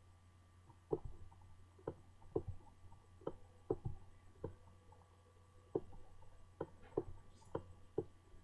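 Computer mouse button clicking, about a dozen faint short clicks at uneven spacing, pressed and released for each stroke of a drawing, over a low steady hum.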